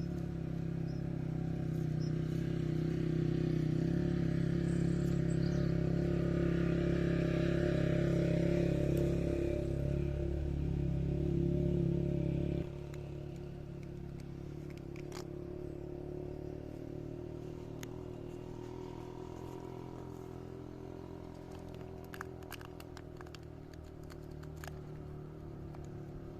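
A motor vehicle engine running steadily at a constant speed. About halfway through it drops sharply in level and keeps running more quietly, with a few faint clicks later on.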